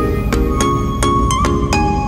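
Music: short pitched chords struck in a quick, even rhythm over a steady low bass.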